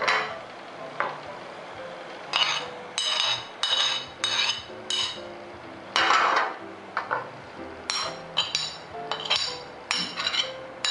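Steel spoon clinking and tapping against glass dishes as ingredients are spooned into a glass baking dish: about a dozen short ringing clinks at an uneven pace. Soft background music runs underneath.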